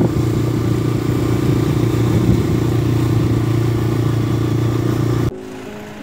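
Motorcycle engine running at a steady cruising speed, with wind rushing over the microphone. The sound cuts off suddenly about five seconds in, leaving quieter outdoor ambience.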